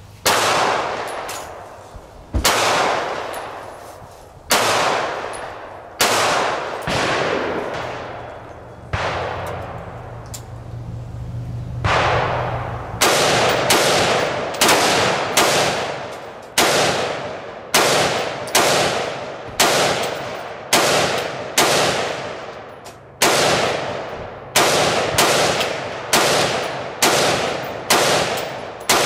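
A long string of single gunshots, each with a ringing echo tail. They come a couple of seconds apart at first, then quicken to about one and a half shots a second about halfway through.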